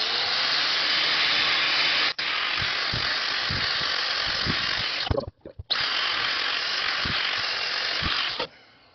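A handheld power tool stripping paint off the metal end of a hydraulic slewing cylinder. It runs steadily for about five seconds, stops briefly, then runs for about three seconds more.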